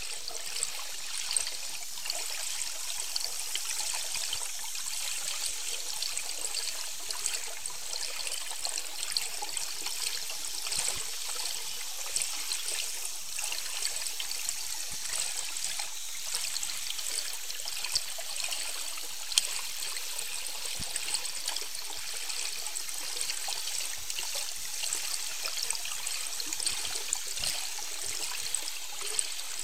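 Underwater ambient noise heard through the boat-mounted camera's underwater microphone: a steady high hiss of moving estuary water with scattered faint clicks and crackles. No whale calls stand out.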